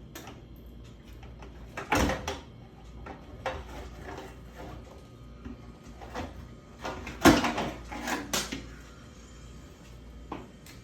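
A series of irregular knocks and clunks, as of hard objects being handled and set down, the loudest about two seconds and seven seconds in.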